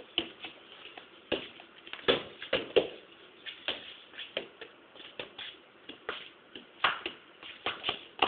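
Irregular scuffing and tapping of shoes on paving, with a few sharper knocks about two seconds in and again near the end.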